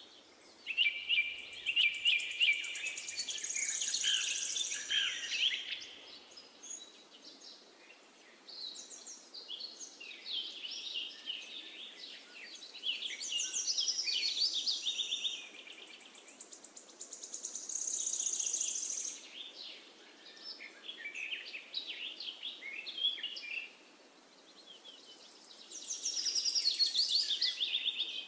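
Birdsong: small birds chirping and trilling in phrases a few seconds long with short pauses between, over a faint steady hiss.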